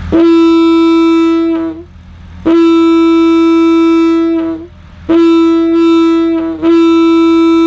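Locomotive air horn sounding a single steady note, blown in four blasts of about one and a half to two seconds each.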